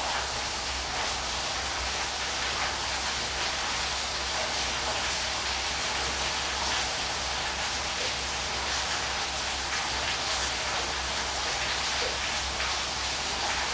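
Waterfall: a steady rushing hiss of falling water that stays even throughout.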